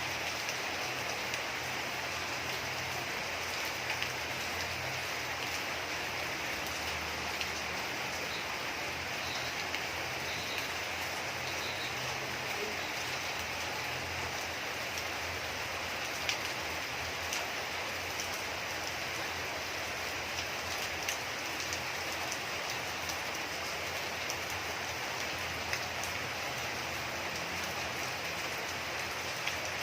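Steady rain falling, a constant hiss with scattered sharper drops ticking on a surface.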